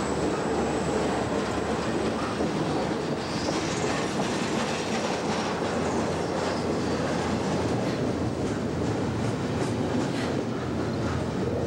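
Double-stack intermodal freight train of well cars rolling past close by: a steady rumble with the clatter and clicks of steel wheels on the rails.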